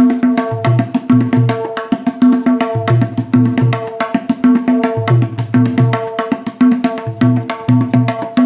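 Tabla pair played in a fast, repeating rhythm. The new 6-inch wooden dayan, tuned to A sharp, rings a clear pitch under rapid finger strokes, and the metal bayan adds resonant bass strokes that come back in groups through the pattern.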